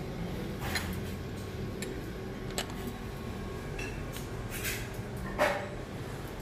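Restaurant room sound: a steady low hum with scattered light clinks of dishes and serving utensils, the sharpest about five seconds in.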